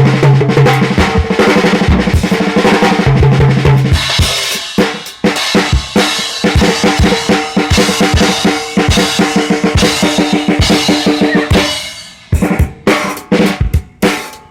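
Acoustic drum kit played fast, with kick, snare and ringing drums in dense strokes. About twelve seconds in the playing drops off briefly, then comes back as separate, spaced hits.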